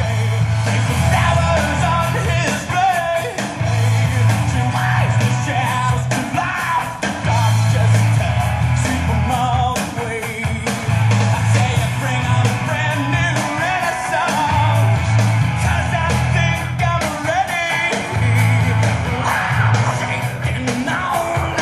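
Rock song with singing over a heavy bass line that pulses in a repeating pattern.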